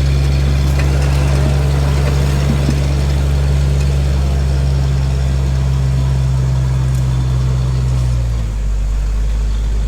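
A vehicle engine idling close by with a steady low note that drops slightly about eight and a half seconds in.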